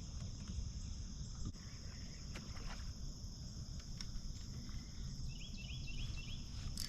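Steady high-pitched insect chorus, with a quick run of four short chirps about five seconds in, over a low rumble.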